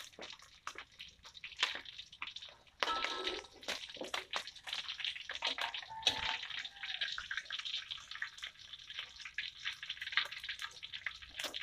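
Hot oil sizzling and crackling around pieces of fried tongkol (mackerel tuna) in a wok as they are lifted out to drain. Metal spatula and slotted ladle scrape and clink against the wok about 3 and 6 seconds in.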